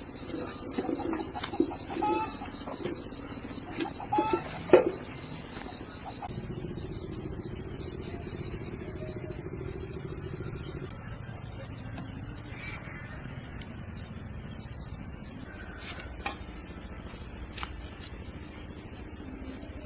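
Chickens clucking in short calls over the first few seconds, then a steady low hum for several seconds; a thin steady high insect drone runs underneath.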